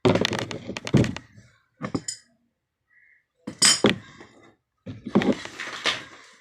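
Clinks and knocks of hard tap parts and tools being handled during a water tap repair, in several separate clattering bursts.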